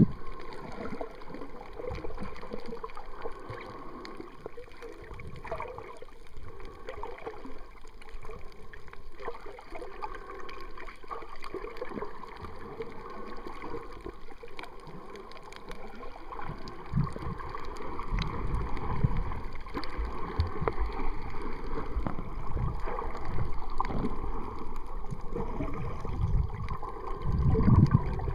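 Muffled water sloshing and gurgling, picked up by a camera held underwater, with low thumps of water movement that grow more frequent and louder from about halfway through.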